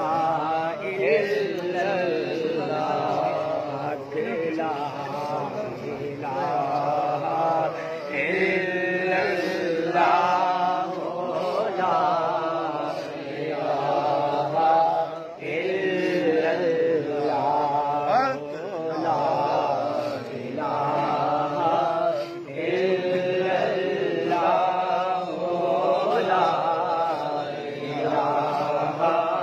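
A male voice chanting a slow devotional melody in repeated phrases about two seconds long, each with a wavering held pitch.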